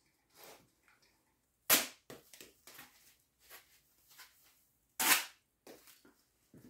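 Cold Steel fixed-blade knife chopping through a foam pool noodle to test the freshly sharpened edge: two sharp knocks about three seconds apart, with smaller clicks and rustles between.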